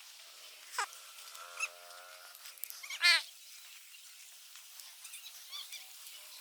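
Bird calls: a quick downward whistle about a second in, then a held honking note, then a loud warbling call that sweeps steeply down in pitch about three seconds in, followed by a few faint chirps.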